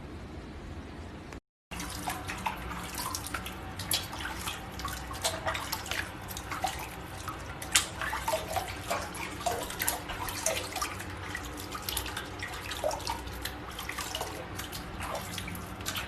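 Running and splashing water, with many irregular small splashes, drips and plinks.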